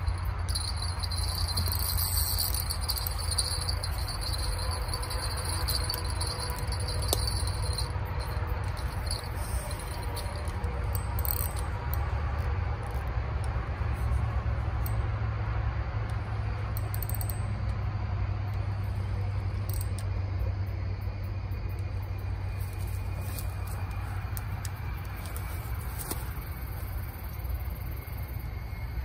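Insects trilling steadily in a high, even buzz that stops about eight seconds in, leaving only faint scattered ticks. A steady low rumble runs underneath throughout and is the loudest sound.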